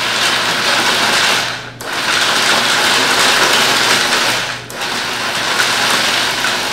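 Food processor chopping a load of nuts and dried fruit, run in pulses: the motor stops briefly about two seconds in and again near five seconds, starting up again each time.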